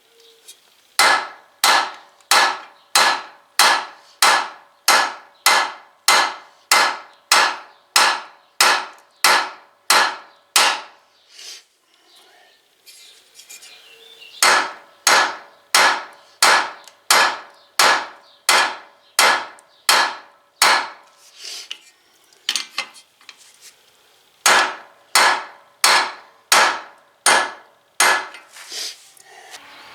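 Hammer blows on a wheel bearing installer driver, pressing a new front wheel bearing into the steering knuckle. The sharp metallic strikes come about two a second, each with a short ring, in three runs separated by brief pauses.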